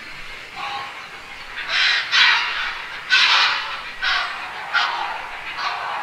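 Heron giving a series of about six harsh, rasping squawks in quick succession, the loudest around two to three and a half seconds in.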